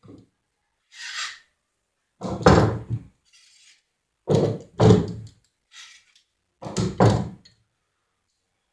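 Clamps being taken off a glued-up fence-picket panel: three loud clunks and rattles of the clamps knocking against the wood, about two seconds apart, with short scraping sounds in between.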